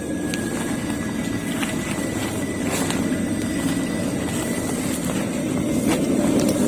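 Steady low mechanical drone of machinery running, with a faint steady high whine above it and a few light clicks.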